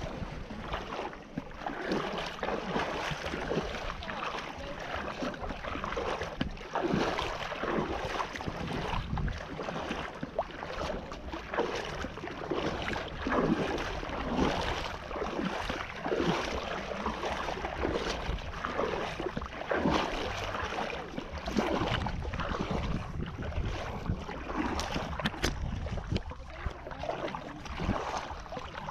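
Small choppy waves lapping and slapping against a small boat, irregularly, with wind buffeting the microphone.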